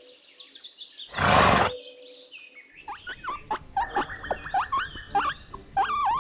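A pony snorts once, a loud blowing burst a little over a second in. About three seconds in a rapid run of short, high chirps begins and continues to the end.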